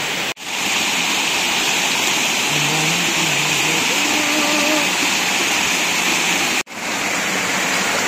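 Waterfall rushing: a steady, loud hiss of falling water. It breaks off for an instant twice, about a third of a second in and again near the end, where the recording cuts.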